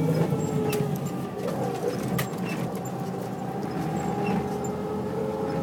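A 700 hp airfield fire truck's engine and drivetrain heard from inside the cab while driving: a steady drone with a whining tone whose pitch dips and then climbs slowly as the truck gathers speed, with a few light clicks.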